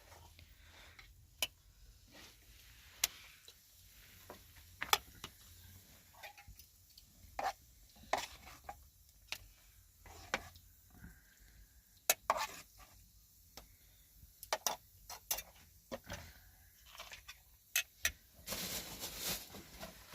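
Irregular clinks and knocks of kitchenware being handled: a dozen or more scattered sharp strikes, with a denser rush of noise coming in near the end.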